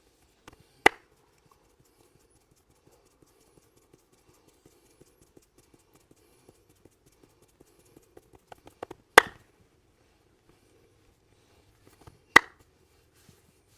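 A masseur's hands making three sharp, loud smacks during a head massage: one about a second in, one at about nine seconds and one a few seconds after that. A quick run of lighter taps comes just before the second smack, with faint finger ticks in between.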